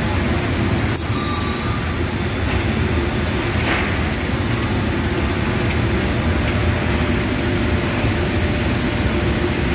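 An automatic powder coating line running: a steady, loud, low drone of plant machinery, mostly deep rushing noise with little change.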